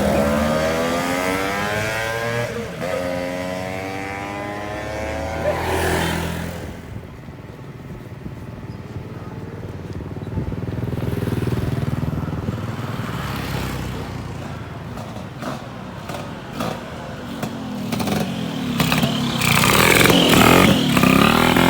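A tuned two-stroke Vespa PX scooter engine with a PE28 carburettor running and accelerating after a jet change. Its note climbs in pitch twice in the first few seconds, settles lower and quieter through the middle, and comes up loud again near the end.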